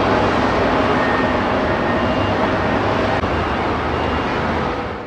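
Steady road traffic noise from vehicles crossing a city interchange: a loud, even rush without distinct events.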